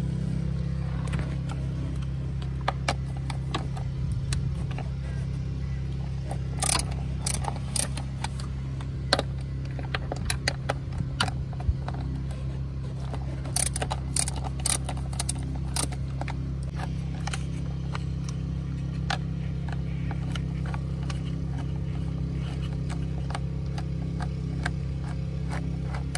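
Scattered metal clicks and clinks of a socket wrench working on small 10 mm bolts in an engine bay, mostly in the middle of the stretch, over a steady low hum.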